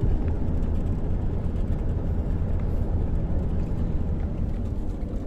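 A road vehicle running, heard as a steady low rumble of engine and road noise.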